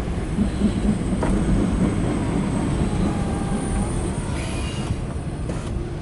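Freight train of loaded autorack cars rolling past: a steady rumble of wheels on rail with faint wheel squeals.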